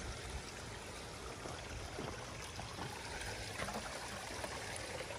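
Small brook babbling steadily.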